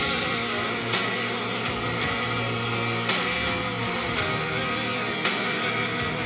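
Music: a guitar-led track with a sharp percussive hit roughly every second.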